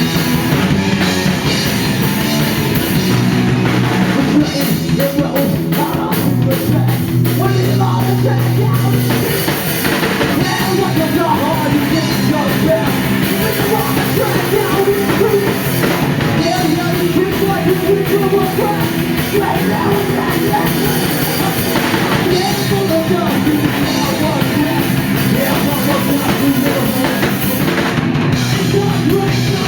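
A rock band playing live, with electric guitars and a drum kit, loud and steady.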